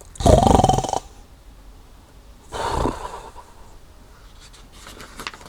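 A loud snore sound effect lasting under a second, followed about two seconds later by a shorter, softer sound.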